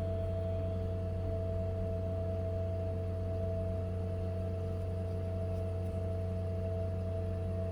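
Milling machine running steadily with an even, unchanging hum, with no sign of cutting.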